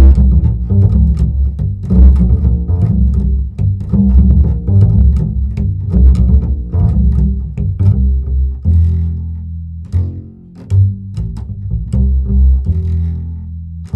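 Music led by a plucked double bass, with bowed string parts, moving through quick, detached notes, with one short break near the end.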